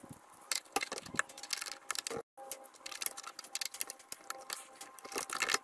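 Hex key turning a rusty steel bolt out of a backpack sprayer's pump-handle pivot: a quick, irregular run of small metallic clicks and ticks as the key works and slips in the bolt head.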